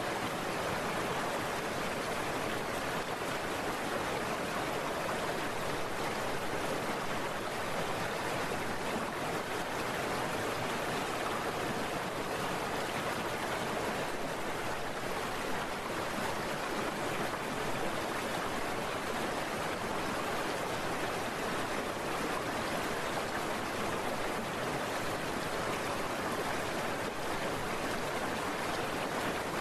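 Heavy rain heard while riding a scooter through it: a steady, even hiss that never lets up.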